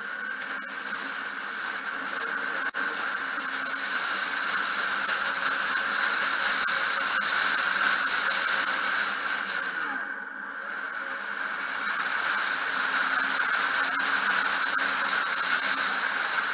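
Steady rushing hiss of a moving car's road and wind noise, easing briefly about ten seconds in.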